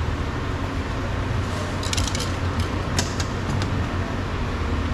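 Small plastic clicks and rattles of door-handle trim pieces being worked loose, a quick cluster about two seconds in and a few single clicks a second later, over a steady low rumble.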